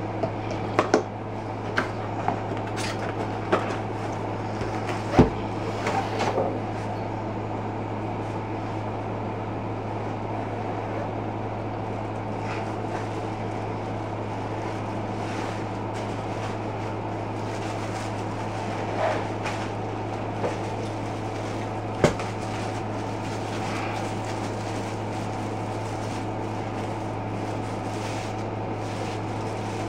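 Handling noises from unpacking a tripod: scattered knocks and clicks, loudest about five seconds in and again about twenty-two seconds in, over a steady low hum.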